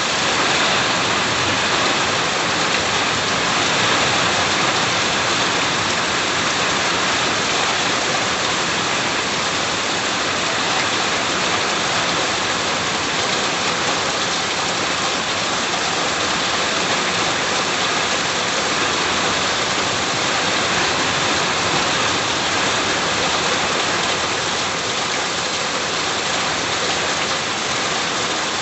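Steady rain falling, an even, unbroken hiss of drops hitting surfaces around a house.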